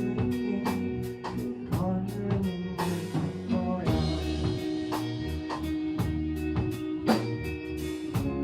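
Live rock band playing, with drum kit, distorted electric guitars and bass guitar. There are steady, evenly spaced drum hits and a cymbal crash about three seconds in.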